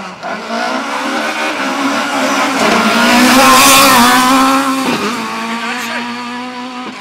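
A Ford Escort Mk2 rally car's engine running at high revs as the car drifts sideways through a corner and passes close by. The note climbs over the first few seconds and is loudest just past halfway, then fades as the car moves away.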